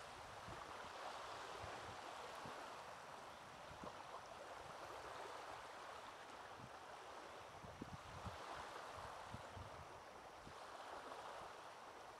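Small waves lapping softly on a pebbly shore, a faint wash that swells and fades every few seconds.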